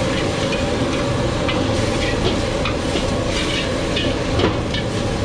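Noodles sizzling in a wok over a gas burner while a metal ladle scrapes and clacks against the wok in quick, irregular strokes, over a steady rushing noise. One sharper clack comes about four and a half seconds in.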